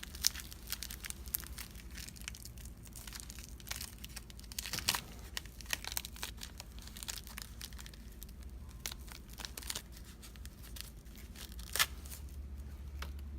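Packaging being torn open and crinkled by hand: a long run of irregular sharp crackles and rips, with one louder crack near the end.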